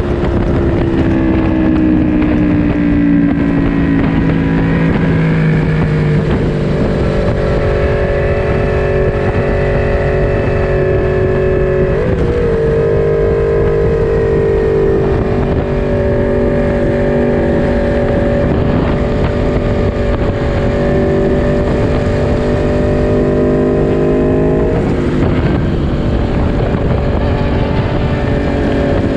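Onboard sound of a litre-class four-cylinder naked motorcycle lapping a race track. The engine note falls over the first few seconds, steps up about twelve seconds in, and climbs slowly before dropping at a gear change near the end, with wind rushing over the microphone.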